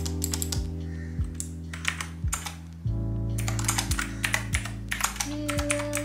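Typing on a typewriter-style mechanical keyboard with blue switches: quick, irregular clicky keystrokes, over background music with a steady beat.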